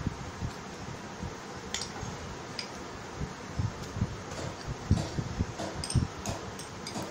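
Metal spoons clinking and scraping on plates as rice is scooped up, in scattered irregular clicks, with soft low knocks, over a steady background hum.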